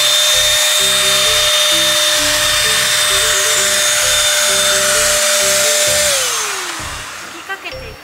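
Handheld electric spray gun atomizing deodorizing liquid inside a car cabin: a steady high motor whine with a rushing spray hiss. It is switched off about six seconds in, and the whine falls in pitch as the motor spins down.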